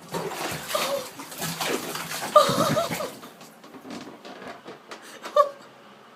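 Water splashing in a filled bathtub for about three seconds, with a short wavering cry about two and a half seconds in, then lighter scattered knocks and another brief cry near the end.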